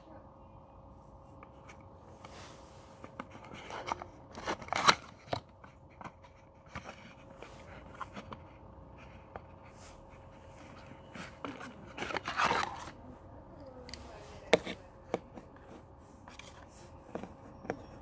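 A cardboard supplement carton being handled and opened, and a plastic capsule bottle slid out of it: scattered paper scrapes and clicks, with louder rustling bursts about five seconds in and again about twelve seconds in. A faint steady hum runs underneath.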